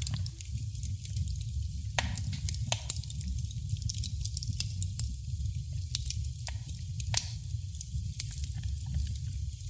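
Wood fire in a fireplace crackling, with irregular sharp pops, a couple of them louder, over a steady low rumble of the burning.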